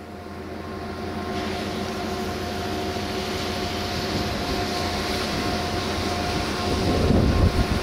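Diesel multiple unit standing at the platform with its engine running: a steady hum and a steady whine over a hiss, fading up at the start. Wind buffets the microphone near the end.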